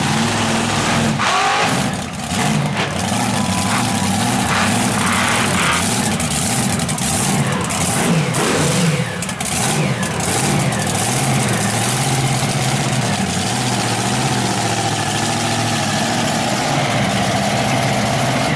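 Monster truck engine running loud and revving hard, its pitch rising and falling with the throttle, with a few sharp knocks in the first half.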